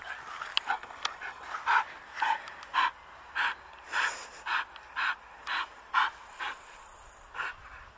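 Young Belgian Malinois panting hard in a steady rhythm of about two breaths a second while it grips a jute bite pillow.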